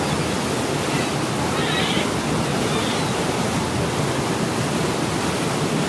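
Steady rushing churn of a passenger ferry's propeller wash foaming in the wake behind the stern.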